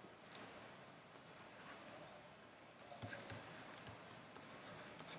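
Near silence with scattered faint clicks and taps of a pen stylus on a tablet as digits are written, most of them about three to four seconds in.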